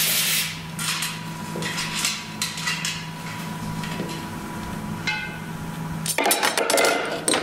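A tube cutter's scraping on a metal fuel line stops about half a second in, then light metallic clinks and knocks as the cut tube and tool are handled, with a brief ring about five seconds in and a louder clatter near the end, over a steady shop hum.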